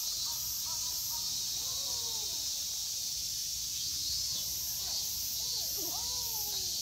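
Outdoor ambience: a steady high hiss with a faint pulsing chirr on top, and faint short rising-and-falling calls twice, about two seconds in and again near the end.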